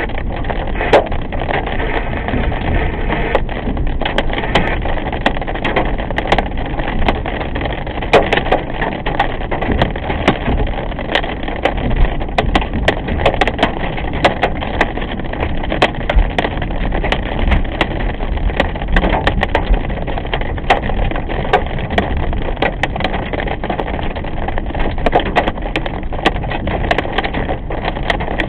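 Rain hitting a car's windshield and roof as it drives on wet pavement, heard from inside the cabin through a dashcam: many sharp drop impacts over steady tyre and road noise.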